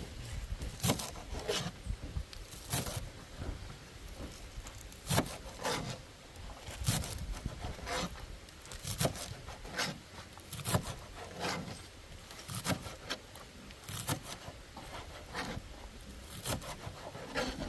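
A series of short scraping or rubbing strokes, irregular, roughly one a second, over a low background rumble.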